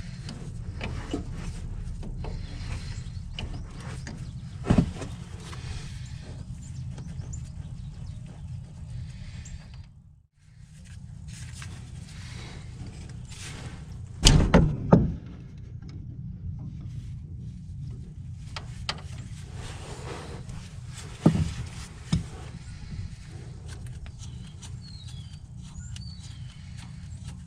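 Hand tools working the hydraulic steering hose fittings off a truck: a handful of sharp metal knocks and clanks, loudest about halfway through, over a steady low rumble.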